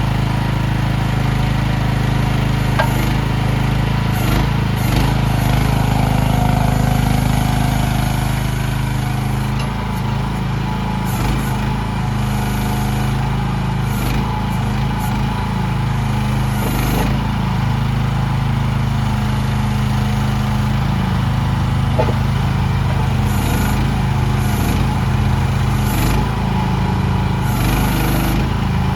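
CFG MX15RX mini excavator's small diesel engine running steadily, its note shifting slightly about a third of the way in, with brief hisses every few seconds.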